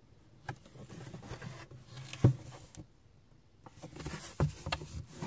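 Handling noise: rustling and rubbing with a few sharp knocks, the loudest a little over two seconds in and two more close together near the end.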